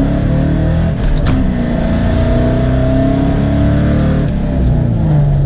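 Ford Mustang GT's V8 accelerating hard, its pitch climbing through a gear, with an upshift about a second in, then climbing again before easing off about four seconds in. The drag radials are hooking on the wet road without wheelspin.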